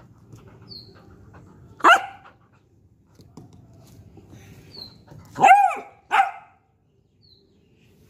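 Beagle puppy barking three times to get someone to play: a sharp bark about two seconds in, then a louder, longer bark that rises and falls in pitch, followed at once by a short one.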